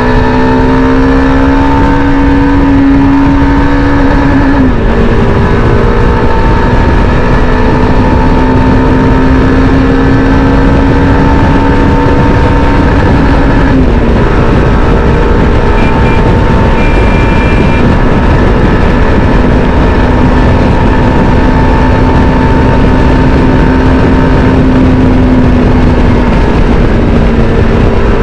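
Yezdi Adventure's single-cylinder engine pulling hard on a top-speed run, its note slowly rising through the gears with two short dips from upshifts, about 5 and 14 seconds in. Heavy wind rush on the microphone at high speed.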